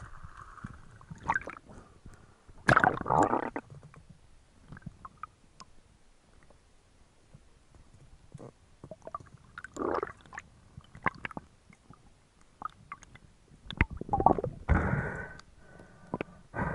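Underwater sound picked up by a diving camera: scattered sharp clicks and knocks, with louder bursts of water noise about three seconds in, about ten seconds in, and near the end.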